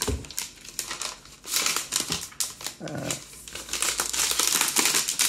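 Thin clear plastic protective sleeve crinkling and rustling as it is handled and pulled off a tablet by hand. The crinkling grows denser toward the end.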